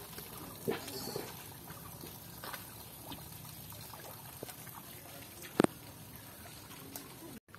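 Shallow water in a flooded rice paddy, splashing and trickling faintly as rice seedlings are pushed into the mud and bare feet wade through it, with small scattered splashes and one sharp, brief knock about five and a half seconds in.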